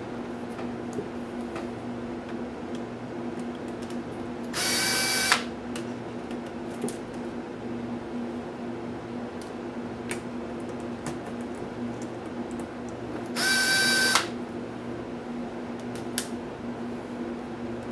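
A small electric screwdriver runs twice, briefly, about four and a half and thirteen and a half seconds in, each run ending in a sharp click, as screws are backed out of the laptop's display assembly. Light clicks of small parts and tools come between, over a steady low hum.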